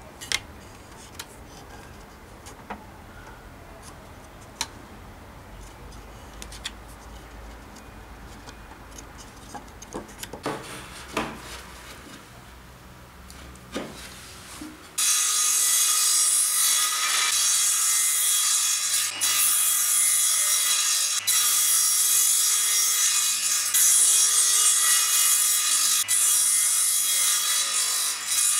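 Light knocks and clicks of wood being handled, then, about halfway in, a table saw abruptly runs loud, its blade cutting through a scrap wooden board pushed on a crosscut sled. The cutting noise stays even and stops just before the end.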